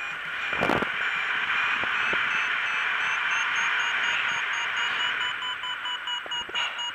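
Paragliding variometer beeping, a high tone broken into quick even beeps: the climb tone that signals rising air. Under it is a steady hiss of wind on the microphone, with a thump about a second in.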